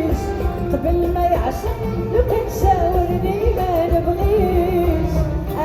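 Moroccan popular song played live by an ensemble: an ornamented, wavering melody over a steady low beat, between the singer's lines.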